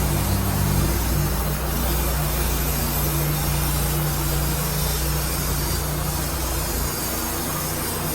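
An engine running steadily with a low, even hum; the deepest part of the hum drops away near the end.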